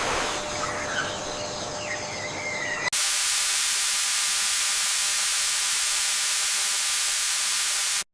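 A loud, steady hiss starts abruptly about three seconds in and cuts off suddenly near the end. Before it there is a softer noisy background with a few faint rising chirps.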